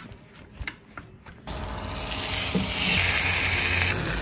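Sous-vided tomahawk steak going into a very hot pan about a second and a half in, then sizzling loudly and steadily as it sears. This is the second sear, done after the water bath to build the crust. A few small clicks of handling come before it.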